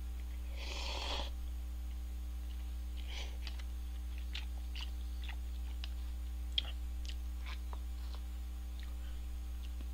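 Instant noodles slurped off chopsticks about a second in, then chewing with scattered small wet mouth clicks and smacks, over a steady low electrical hum.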